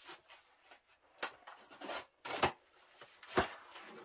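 Cardboard LP mailer being opened by hand with scissors: rustling and scraping of the cardboard flaps and insert, with several short sharp knocks, the loudest a little before the end.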